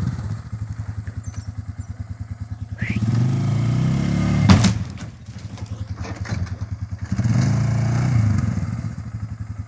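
Polaris Sportsman 500 ATV's single-cylinder engine idling with a fast chugging pulse, revving up twice for a second or two at a time. A single sharp knock sounds about halfway through.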